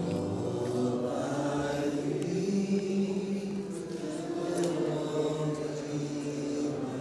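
A large group of voices singing together in a slow melody with long held notes.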